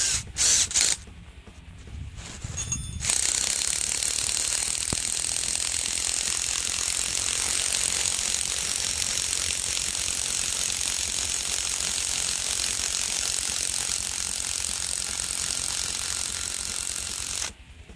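Impact gun driving a lag bolt into the ground: a few short bursts, then a long, continuous, rapid hammering rattle that stops suddenly near the end.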